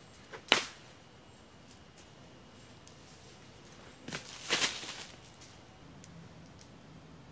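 Homemade bolas of rope and steel wrench sockets being thrown, giving short sharp whip-like cracks: one about half a second in, and two or three close together about four seconds in.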